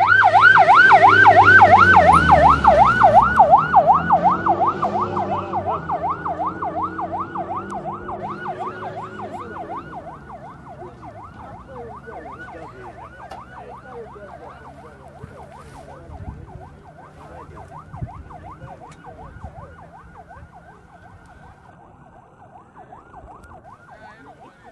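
Rally zero car's fast wailing siren, sweeping up and down several times a second. It is loudest as the car passes in the first few seconds, with its engine note dropping, then fades steadily as the car drives away down the stage.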